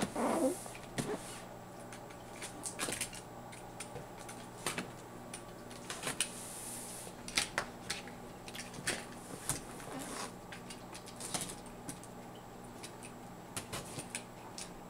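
Hands handling a cardboard power-supply retail box: irregular taps and clicks, with a few short scrapes and rubs against the cardboard, as it is turned over and worked at to get it open.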